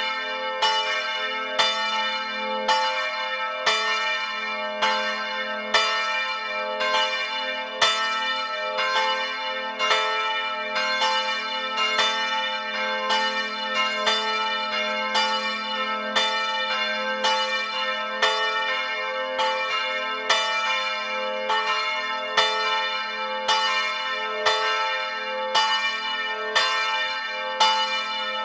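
Swinging church bells ringing at close range in the bell frame: the clapper strokes come in quick succession, about one to two a second, over a continuous bell hum.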